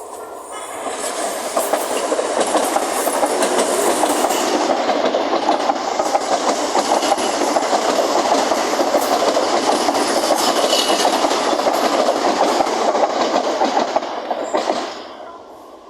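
CSR electric multiple unit passing close by, its steel wheels running on the rails. The noise builds about a second in, holds steady and loud, then falls away quickly near the end as the train clears.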